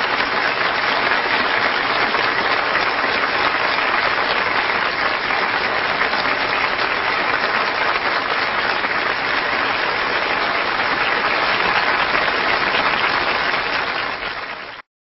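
Audience applauding steadily, dying down slightly near the end before cutting off abruptly.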